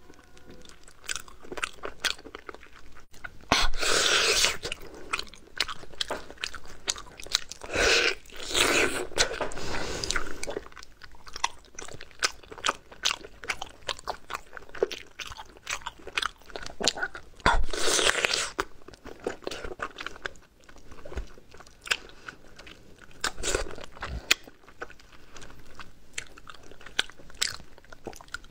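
Close-up eating sounds of a person biting and chewing braised chicken drumsticks: a steady run of small chewing clicks and wet mouth noises, broken by several louder bites.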